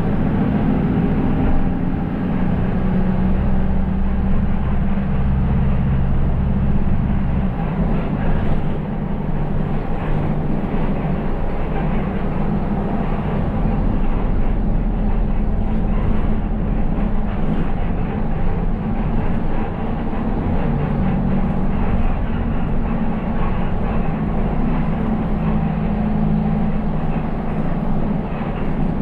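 City bus engine and tyre/road noise heard from inside the driver's cab while driving, a steady low drone that shifts in pitch a couple of times as the bus changes speed.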